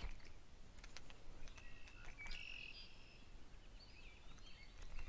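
Faint songbird calls: short, high whistled notes in stepped pitches about a second and a half in and again near the end, over a low rumble, with a few light clicks in the first second.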